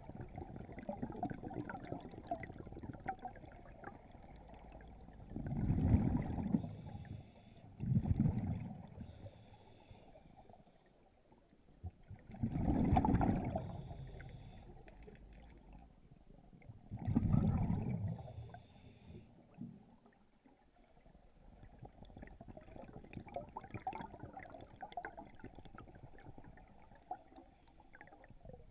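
Scuba regulator breathing heard underwater: exhaled air bubbles out in gurgling bursts every few seconds, with short hisses of inhalation between them.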